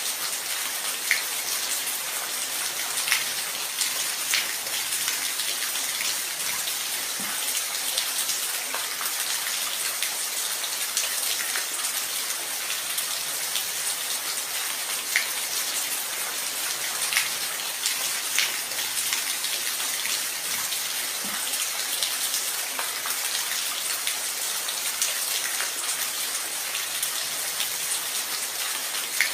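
Steady rain falling, a continuous high hiss with scattered louder individual drops hitting close by.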